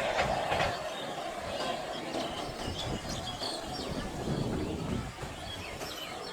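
A passing train's rumble fading away as it recedes, leaving quieter trackside ambience with short high chirps.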